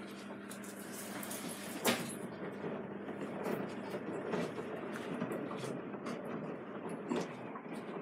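Samsung Eco Bubble WW90J5456FX washing machine running early in its wash cycle: a steady hum ends with a sharp click about two seconds in, followed by irregular mechanical noise with scattered clicks and knocks.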